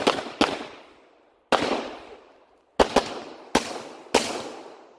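About seven pistol shots fired at an uneven pace, two of them a quick pair about three seconds in. Each sharp crack trails off in a long echo.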